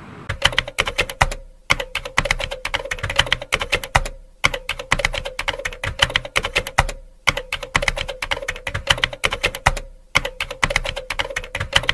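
Rapid computer-keyboard typing, fast key clicks in runs of a few seconds broken by brief pauses.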